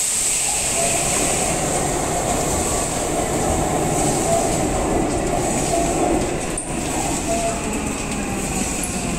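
Subway train approaching through the tunnel and pulling into an underground station: a steady rumble of wheels on the rails, with short squealing tones from the wheels now and then.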